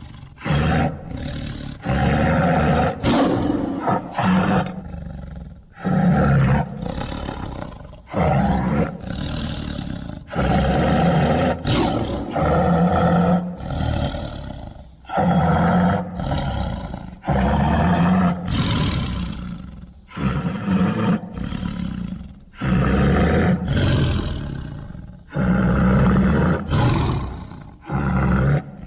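A tiger roaring over and over, a loud call about every second, each lasting around a second with short gaps between.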